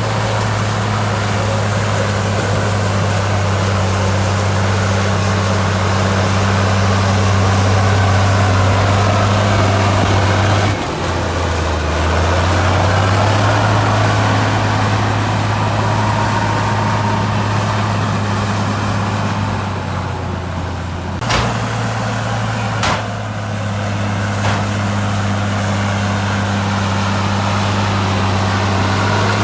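Heavy diesel engine of earthmoving machinery running steadily under a low, even drone, its pitch stepping about eleven seconds in and again about twenty-one seconds in. A few sharp clanks come near the end.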